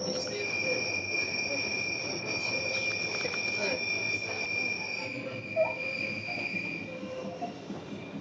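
Train rumbling along the track, heard from inside the carriage, with a steady high-pitched squeal from the wheels that dies away about seven seconds in.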